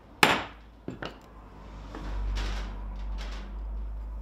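A soft-faced mallet strikes a bench chisel's wooden handle once, sharply, about a quarter second in, driving the chisel into the end of a mortise in redwood. A lighter tap follows near the one-second mark, then a low rumble with faint scuffs as the chisel is repositioned.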